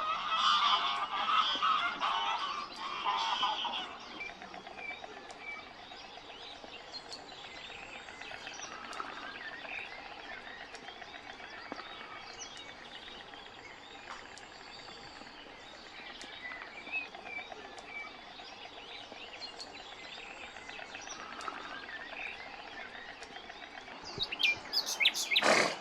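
Geese honking repeatedly for the first few seconds, then small birds chirping and singing. A brief loud noise comes near the end.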